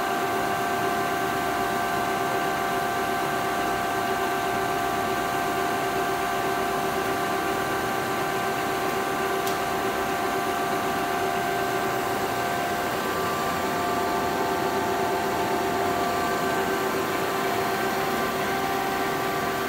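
A 48-inch Webster & Bennett vertical turret lathe running under power: a steady mechanical hum with a multi-tone whine from its drive, the whine shifting slightly in pitch a little past halfway.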